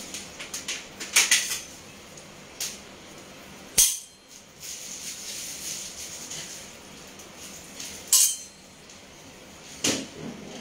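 Two metal cooking spatulas (khunti) knocked against each other, making sharp metallic clinks: a quick flurry about a second in, then single louder clangs near four, eight and ten seconds.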